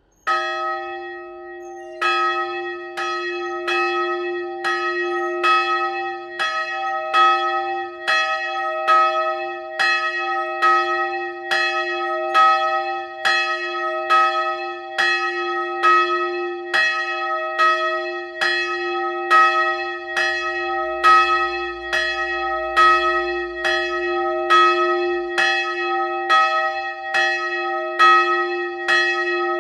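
A single 135 kg church bell with an E strike note, cast in 1927 by László Szlezák, swinging on a hand-pulled rope, its clapper striking about three times every two seconds. There is one stroke just after the start and the next about two seconds later, then even tolling with a low hum ringing on between strokes.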